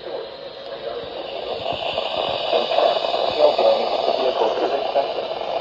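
NOAA Weather Radio broadcast heard through a radio receiver: a computer-synthesized voice reading out a severe thunderstorm warning, muffled and indistinct under steady static hiss.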